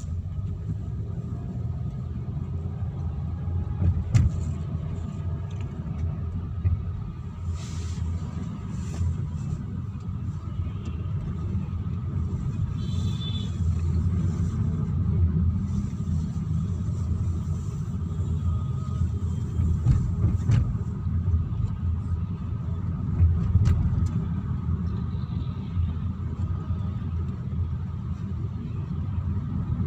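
Car cabin noise while driving: a steady low rumble of the engine and tyres on the road, with a few light knocks along the way.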